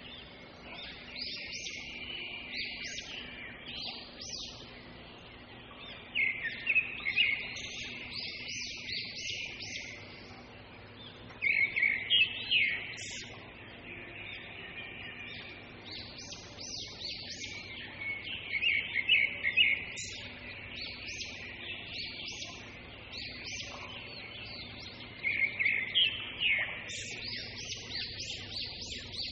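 Small birds chirping in quick, high-pitched runs that come back every five or six seconds, over a faint steady low hum.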